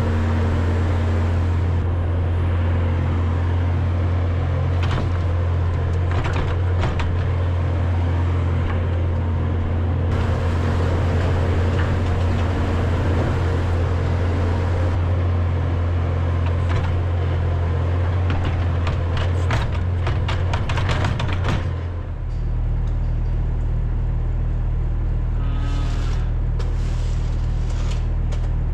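A farm machine's engine runs steadily under load, with scattered knocks and rattles. About two-thirds of the way through, the engine note drops to a lower, slower hum as it throttles back.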